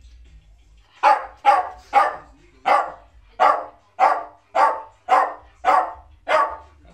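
A dog barking off-camera, about ten sharp barks at roughly two a second, starting about a second in.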